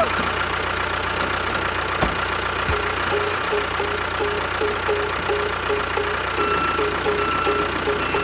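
Steady engine-like running sound, even and unbroken. From about three seconds in, a short pip repeats a couple of times a second over it.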